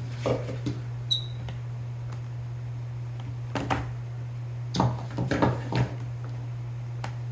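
Small clicks and handling noises of hands fitting wire pins into a Tamiya connector over a steady low hum, with a short metallic ping about a second in and a cluster of clicks around five seconds in.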